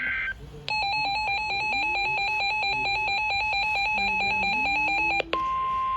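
The tail of an EAS/SAME digital header burst, a brief two-tone data buzz, gives way to rapid electronic beeping at about ten beeps a second. About five seconds in, the beeping stops and the steady 1050 Hz NOAA Weather Radio warning alarm tone begins.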